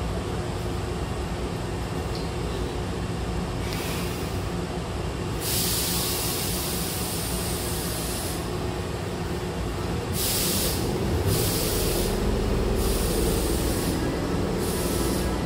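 Hankyu electric train's compressed-air system venting in a series of hisses: a long hiss of about three seconds, then several shorter ones. A low steady hum comes in about two thirds of the way through, over the stationary train's low rumble.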